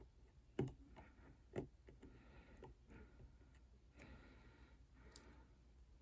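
Faint small clicks and taps of a small screwdriver and tiny screws on the iPhone's parts, a few separate ticks over near silence, the clearest about half a second, a second and a half, and five seconds in.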